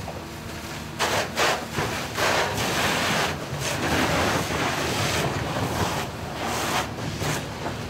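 Atlas excavator's diesel engine running steadily as its grab tears at a burning house's copper-clad roof, with loud, irregular rushes of noise starting about a second in.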